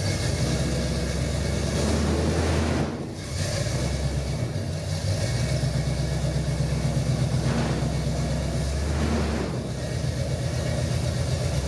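First-generation Pontiac Firebird's engine idling with a lumpy, pulsing beat while the car creeps up onto the lift runways, easing off briefly a couple of times.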